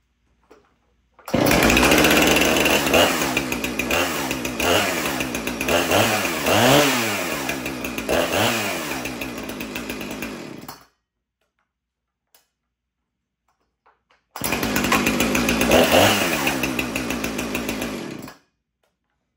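Husqvarna 455 two-stroke chainsaw engine running and revving, its pitch falling and climbing again several times. It runs in two stretches, each starting and stopping abruptly, the first about nine seconds long and the second about four.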